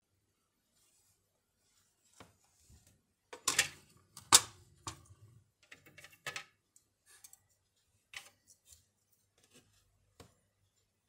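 Hard plastic case parts of a Panasonic KX-T4311 answering machine being handled: scattered clicks and knocks of plastic, with a busy stretch in the middle and the loudest knock about four and a half seconds in.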